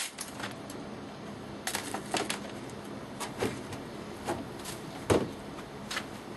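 Steady hum of an air conditioner running, with about eight light clicks and knocks scattered through it.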